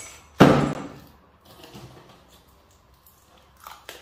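A short, loud crinkle of plastic packaging being handled, followed by faint rustling and small handling noises.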